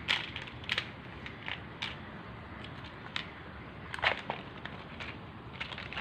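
Glass cartridge fuses clicking and rattling against a plastic compartment box as they are picked through, in about a dozen irregular sharp clicks.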